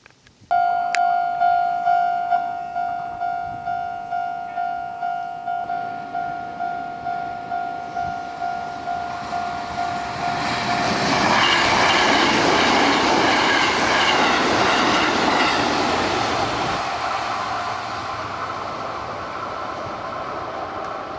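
Japanese level-crossing alarm starts about half a second in and rings steadily, about twice a second. From about ten seconds in, a Sanyo Electric Railway train runs past the crossing; its running noise swells, covers the alarm, and slowly fades.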